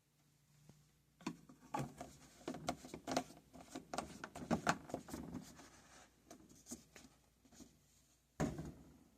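Laundry being handled at a washer or dryer: a run of irregular knocks and rubbing, then one sharp thump near the end.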